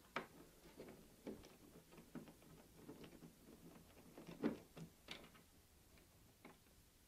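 Faint, irregular clicks and light taps of a screwdriver working a stubborn screw out of a wide-format plotter's end cover, with a sharper knock about four and a half seconds in.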